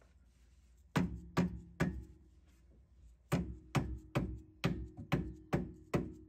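Mallet blows on a new suspension strut, knocking it into place to line it up with its bolt hole. Three quick strikes about a second in, then after a pause a steady run of about two strikes a second, each with a short ring.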